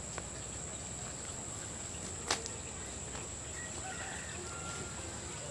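Outdoor ambience: a steady high-pitched insect drone with faint bird calls, and one sharp click a little over two seconds in.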